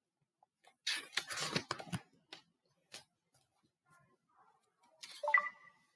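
Paper rustling as a page of a hardcover picture book is turned, with a couple of light taps after it. A short sound with a held tone comes near the end.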